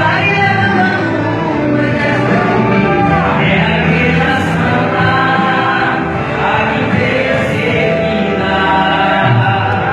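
Gospel music with a choir singing long held notes over accompaniment.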